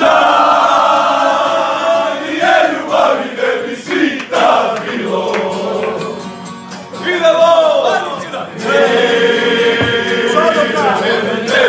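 A room of men singing together loudly in a rowdy celebratory singalong, many voices at once with shouts mixed in. The singing eases off briefly about halfway through, then comes back at full strength.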